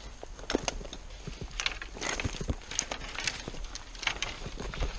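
Footsteps on stony, twiggy ground: irregular crunches and clicks as someone walks over gravel, stones and undergrowth.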